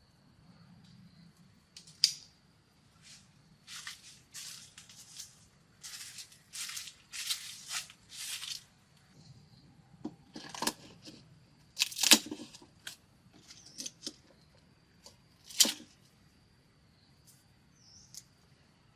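Irregular rustling and crackling of dry plant material being handled, broken by a few sharp snaps or clicks, over a faint steady high whine.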